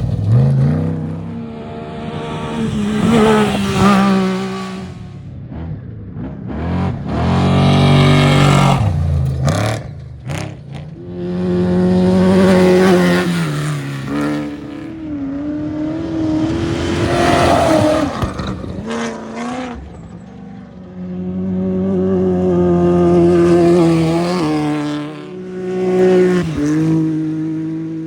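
Off-road race vehicles' engines passing one after another, each swelling loud as it revs through and then fading, with the pitch climbing and dropping as they accelerate and shift. About six passes.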